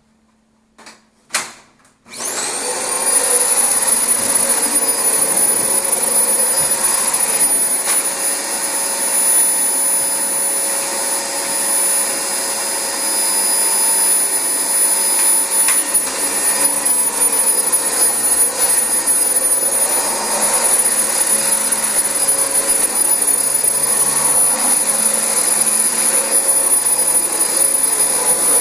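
A few short clicks, then a Dyson DC25 upright vacuum cleaner is switched on about two seconds in. Its motor spins up quickly to a high whine and runs steadily, loud, as it vacuums carpet.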